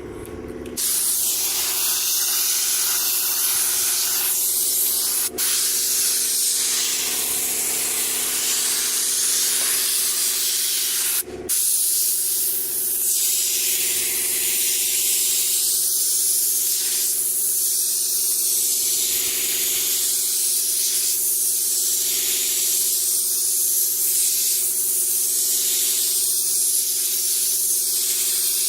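Air spray gun spraying paint in a steady hiss. It starts about a second in and cuts out briefly twice as the trigger is let go. A low steady hum runs underneath.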